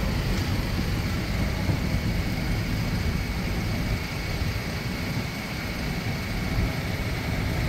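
Diesel engine of a vintage Leyland double-decker bus running as the bus drives slowly past close by: a steady low rumble.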